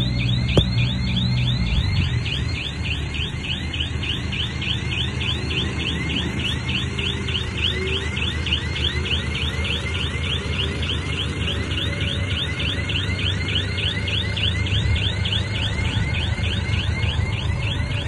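Heavy machine engine running steadily under a rapid, regular high-pitched chirping: short falling squeaks repeating about four or five times a second.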